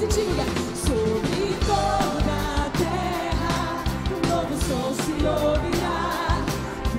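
Live worship music: a group of singers with a band of drums, electric and acoustic guitars and keyboard, over a steady beat.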